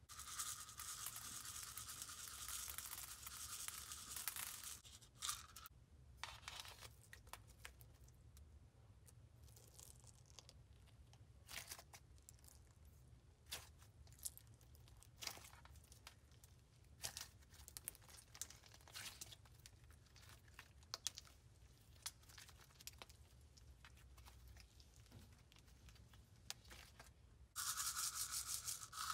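Homemade polymer-clay sprinkles poured from a plastic tub onto slime, a dry rattling hiss lasting about four seconds at the start and again near the end. In between, hands squeezing the sprinkled slime make scattered small pops and crackles.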